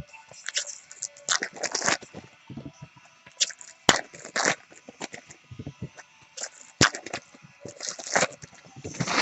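Trading card packs being opened and handled: wrappers tearing and crinkling in irregular bursts, with two sharp clicks, about four and seven seconds in.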